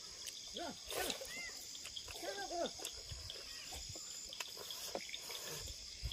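Steady insect chorus of crickets trilling, with a few short rising-and-falling animal calls in the first half and scattered clicks of chewing and lip-smacking.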